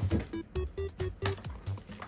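Background music with a quick, steady beat and short plucked notes.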